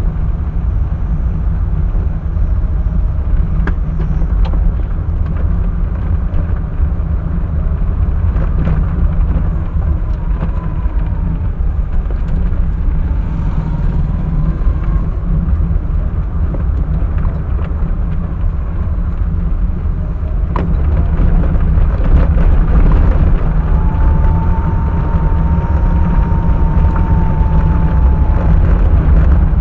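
A car on the move, heard through a dash-cam's microphone: a steady low rumble of engine and road noise, with a few sharp knocks and rattles and a faint wavering whine late on.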